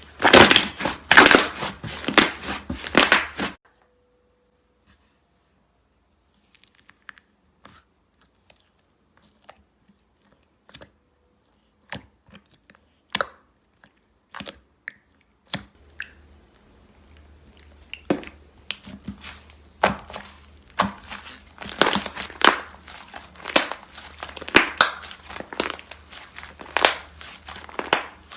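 Slime being worked by hand, giving dense crackling and popping clicks. After about three and a half seconds the sound drops almost to nothing, with only scattered single clicks, and dense crackling returns about sixteen seconds in.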